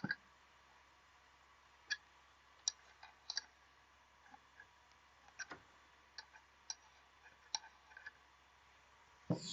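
Faint, irregular metal clicks and taps of a spanner working the screw of a bearing puller clamped on a ceiling fan rotor's ball bearing, with a louder knock near the end.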